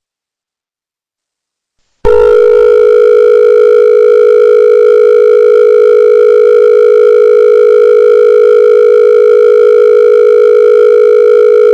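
About two seconds of dead silence, then a loud, steady electronic alert tone cuts in suddenly and holds at one low pitch without wavering, with fainter higher overtones.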